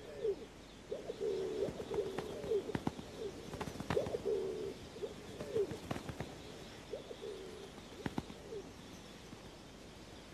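Rock pigeons cooing: a run of low, repeated coos that stops about nine seconds in, with a few sharp clicks among them.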